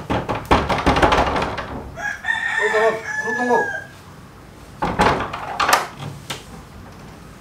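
Loud clattering knocks at the start, then a rooster crowing once from about two seconds in, a long call ending in a held high note. A few sharp knocks follow about five to six seconds in.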